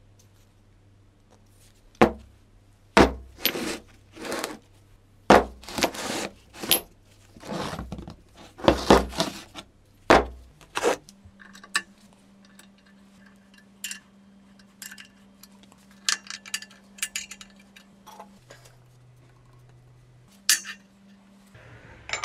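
Metal clanking and clinking, about a dozen sharp hits with some ringing over the first half, then a steady low hum that drops lower for about two seconds near the end, with a few lighter clicks.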